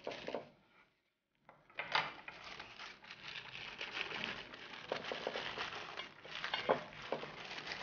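Sandwich paper crinkling and rustling as it is folded by hand around a rolled tortilla on a plate. The crackling is dense and uneven, with a few sharper crackles.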